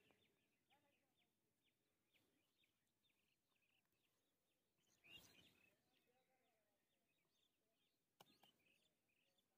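Near silence: faint bird chirps, with one brief soft scraping noise about halfway through and a small click near the end.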